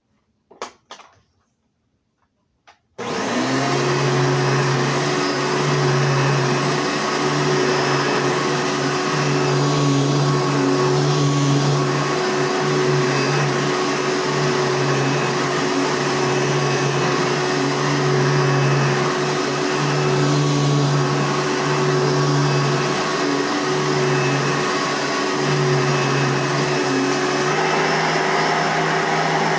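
A Hoover Soft N Light vacuum cleaner switched on about three seconds in, after a few faint clicks. Its motor comes straight up to speed and runs steadily.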